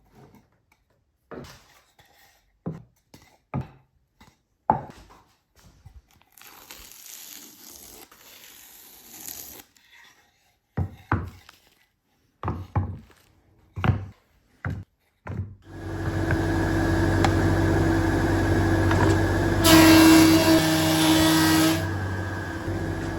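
Scattered knocks and clacks of wood and tools being handled, with a short stretch of rubbing. About two-thirds of the way in, a wood lathe starts and runs with a steady motor hum. For about two seconds a louder rushing noise rises over it.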